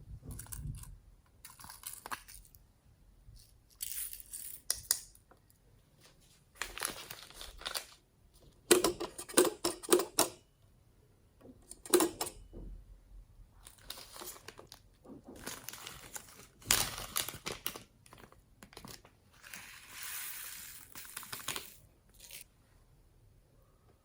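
Slime being squeezed and stretched by hand, giving repeated bursts of crackling with sharp clicking pops, about a dozen bursts with short pauses between them.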